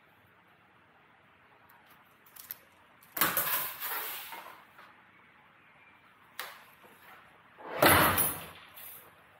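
Sheet metal being handled on the bench: two loud scraping, rattling noises about three and eight seconds in, with a few lighter clicks between them.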